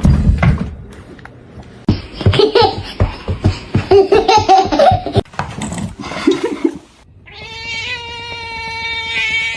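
Person laughing in loud bursts alongside a cat, then, from about seven seconds in, a long steady high-pitched cat cry that holds its pitch.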